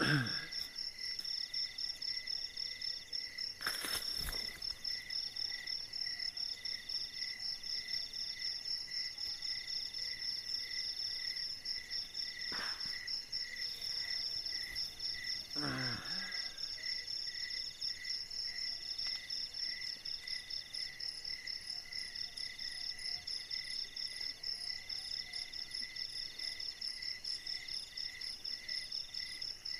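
Night insects trilling steadily in several overlapping high, fast-pulsing tones, one of them chirping in short repeated bursts. A sharp click comes about four seconds in, and a brief falling sound around sixteen seconds.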